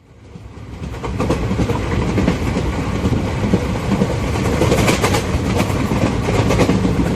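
Train running on rails with a steady clickety-clack of wheels. It fades in over the first second and cuts off suddenly at the end.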